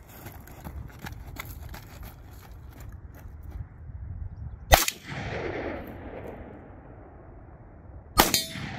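Two rifle shots about three and a half seconds apart, each followed by a long rolling echo, with a brief metallic ring from the steel target after the second. Light clicks and taps from handling come in the seconds before the first shot.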